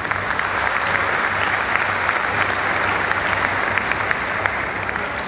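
Audience applause, a dense patter of hand claps that swells up at the start, holds steady, and begins to fade near the end.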